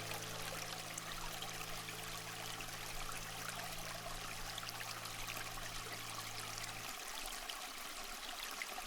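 Ambient sleep soundtrack: a steady rushing hiss like running water under a low held drone, which stops about seven seconds in and leaves the hiss alone.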